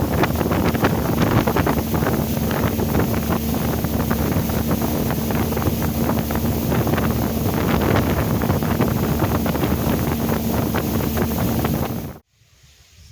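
Wind buffeting the microphone, with a steady low hum underneath; it cuts off abruptly near the end.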